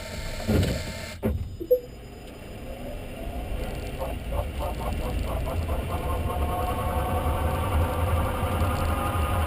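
Renault Zoe Q210 electric drive motor whining, its pitch slowly rising as the car gathers speed, over a steady low rumble. Two sharp knocks come about a second and a half in.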